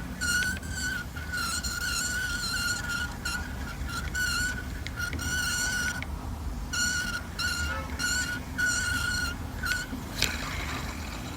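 Daiwa Revros LT 2500D-XH spinning reel being cranked in short stretches, its gears giving a steady high-pitched whine that stops and starts repeatedly, with a sharp click near the end.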